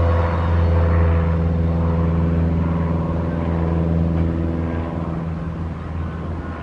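Single-engine piston light aircraft, a Piper PA-28 Cherokee, running at full takeoff power: a steady, even drone of engine and propeller through the takeoff roll and lift-off, slowly getting fainter toward the end as it climbs away.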